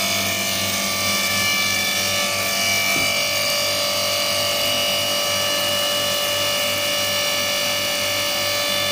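Oil-filling pump running steadily, a hum with a regular pulse underneath, drawing new engine oil out of a jerrycan through a hose into the engine.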